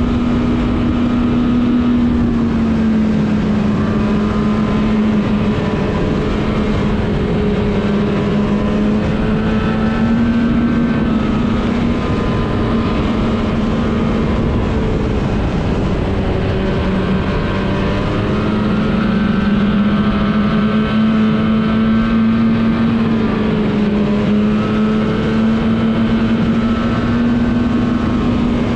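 Snowmobile engine running steadily under way, its pitch dipping and rising gently every few seconds.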